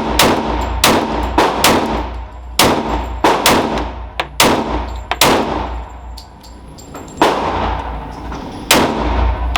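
Glock pistol being fired rapidly in an indoor range, about a dozen shots at an uneven pace, each ringing off the walls, with a longer gap about two-thirds of the way through.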